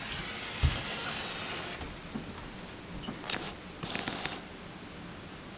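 Struck match flaring with a hiss for about a second and a half, then a few light clicks and taps of handling.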